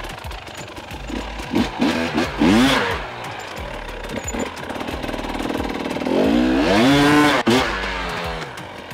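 Husqvarna enduro motorcycle engine climbing a steep dirt ramp. It starts at low revs, with a few short throttle openings rising in pitch around two and a half seconds in. A longer rising rev comes at about six seconds as the throttle opens for the ramp, and it cuts off sharply at about seven and a half seconds.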